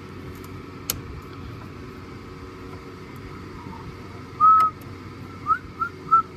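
A person whistling a short run of quick notes, starting about four and a half seconds in, over a steady low hum. Two sharp clicks come first, one about a second in and one just as the whistling starts.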